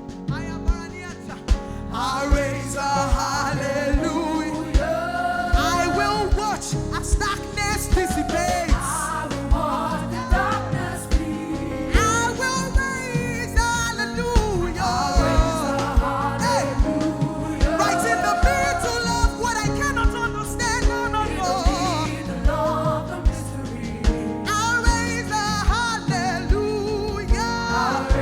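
Live gospel worship music: singers over a band with drums keeping a steady beat, quieter for the first couple of seconds and then full.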